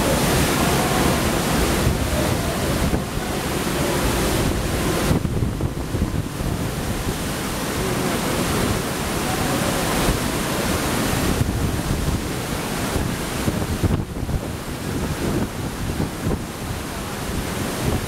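Kintetsu rapid express electric train running along the platform, a continuous rush of wheel and running noise mixed with wind buffeting the microphone and falling rain.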